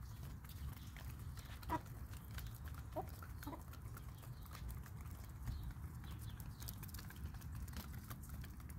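Chickens pecking rice off wet concrete: quick, irregular beak taps, with a few short clucks in the first half.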